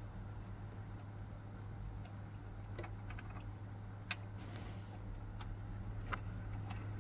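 Scattered light clicks and ticks from handling small computer parts and a screwdriver during an SSD install, over a steady low hum.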